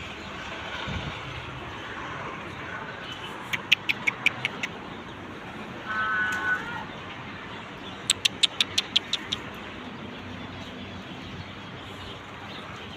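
Steady outdoor background noise broken by two quick runs of sharp clicks, each lasting about a second, one a few seconds in and one past the middle, with a brief tone between them.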